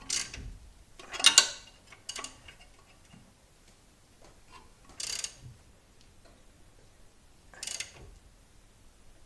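Spanner working the pinch bolt nut on a Suzuki Swift's new lower ball joint: a few short metallic clicks and rasps with pauses between, the loudest a little over a second in.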